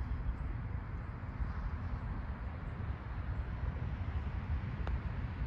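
Steady low rumble of wind on the microphone, and near the end a single sharp click of a putter striking a golf ball.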